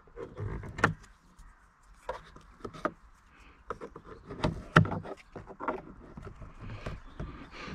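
Plastic trim lever working at the edge of a plastic car interior trim panel: scattered scrapes, creaks and clicks, with two sharper clicks about a second in and just before five seconds.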